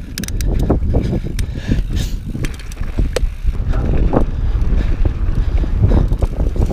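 Mountain bike riding down a rocky dirt trail: wind rumbling on the camera microphone, with scattered sharp clicks and knocks from the bike and its tyres over rock.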